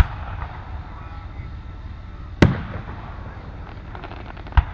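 Fireworks shells bursting: a sharp bang at the start, a louder one about two and a half seconds in with a short echoing tail, and another near the end, preceded by a brief spell of faint crackling.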